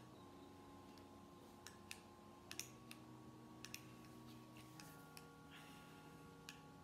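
Near silence: room tone with a faint steady hum and a few faint, irregularly spaced clicks.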